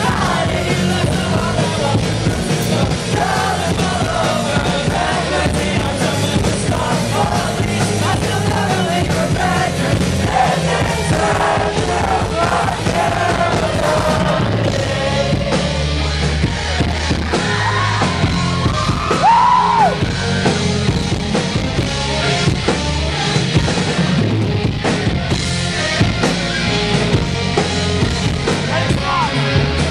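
Live rock band playing electric guitars, keyboard and drums, with a lead vocalist singing over them. It is recorded from within the audience on a camcorder microphone.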